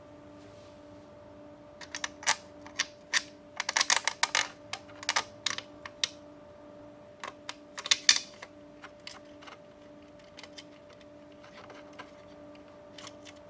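Irregular clicks, taps and rattles of a plastic cooling fan being handled and fitted into the sheet-metal back panel of a hard-drive enclosure. They come in a quick uneven run from about two seconds in to about nine seconds in, loudest near eight seconds, with a faint steady hum underneath.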